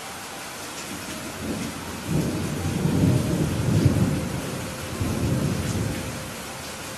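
Steady rain with a roll of thunder: the low rumble builds about a second and a half in, peaks twice in the middle and fades away near the end.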